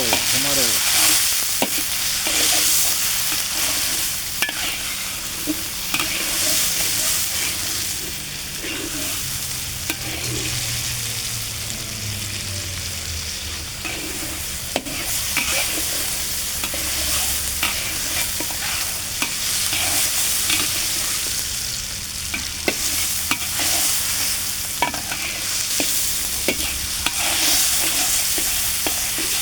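Tomato, garlic and cinnamon sizzling in hot oil in a frying pan while being stirred, a steady frying hiss with frequent sharp clicks and scrapes of the utensil against the pan.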